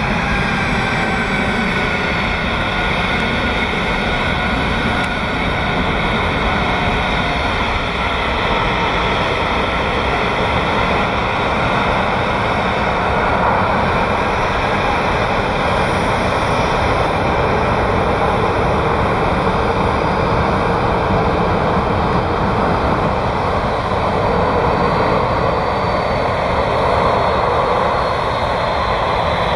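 Boeing 737-800 jet engines running at low taxi thrust, a steady whine and rush. Thin high tones drift slowly in pitch, and one rises near the end.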